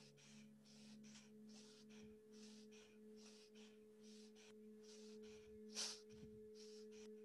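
Faint bellows breath (bhastrika): quick, forceful breaths in and out through the nose, about three a second, over a steady low ringing tone.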